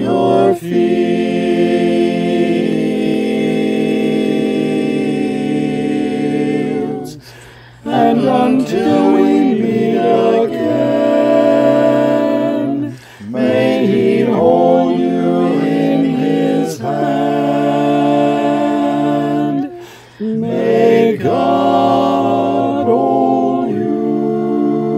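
Small a cappella vocal ensemble singing slow, sustained chords in close harmony, with three short breaks for breath between phrases.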